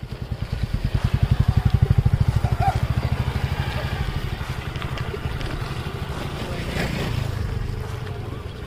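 An engine running with a rapid, even low throb that swells over the first couple of seconds and then slowly fades.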